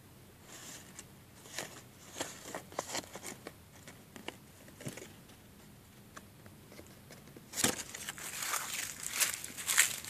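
Leaves rustling and crackling as a hand handles and pushes through a plant's broad leaves: scattered light clicks at first, then louder, denser rustling from about three-quarters of the way in.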